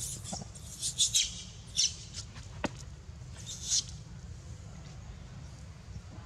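A few short, harsh squeaks from young macaques, four of them spread over the first four seconds, with a single sharp click in between, over a low steady rumble.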